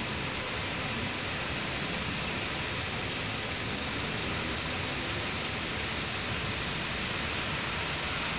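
Steady, even hiss of background noise with no distinct sounds standing out.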